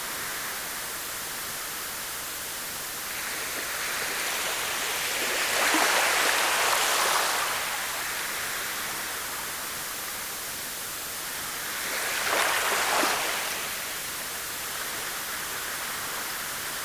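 Waves washing in on a shore over a steady rush of water, a louder surge coming in about every six seconds, around five seconds in and again around twelve seconds in.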